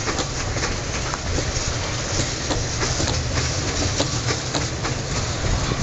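Long train of C62-type steel open coal wagons rolling past. The wheels run on the rails with a steady rumble, and irregular clicks and clanks come as they cross rail joints.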